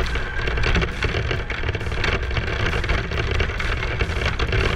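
Radio-controlled car driving over a rough dirt trail, heard up close from on board: its motor running, with frequent knocks and rattles from the chassis bouncing over the ground.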